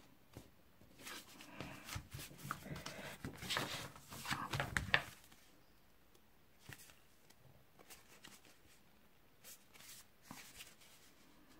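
Stiff cardstock being handled, folded and pressed together by hand: paper rustling and scraping with small taps, busiest in the first five seconds, then only a few faint ticks.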